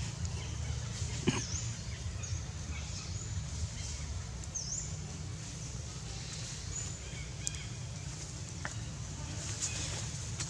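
Short, high chirping calls, some dipping and rising in pitch, over a steady low rumble, with a few sharp clicks about a second in and again near seven and a half seconds.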